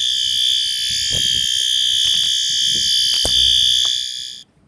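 System Sensor P2RL fire-alarm horn strobe sounding a steady, unbroken continuous horn tone on its low-volume setting, with a knock about three seconds in. The tone cuts off suddenly near the end as the horn is switched off.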